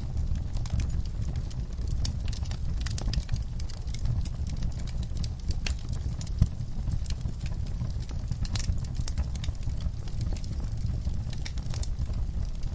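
Wood fire burning: irregular crackles and sharp pops over a steady low rumble, with one louder pop a little past the middle.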